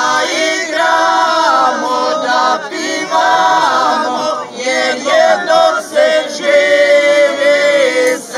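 A group of singers singing a song together a cappella, with no accompaniment, ending on a long held note near the end.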